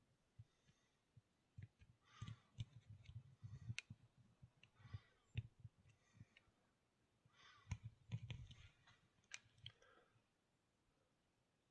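Near-silent room with scattered faint clicks and soft knocks, and two brief clusters of chirping calls, about two and seven and a half seconds in; quiet after about ten seconds.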